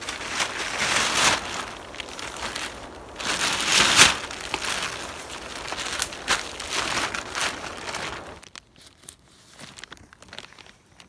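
Green polyethylene tarp crinkling and rustling as it is dragged and pulled off a wooden pole frame. The crinkling is loudest about four seconds in and dies down to a few faint rustles after about eight seconds.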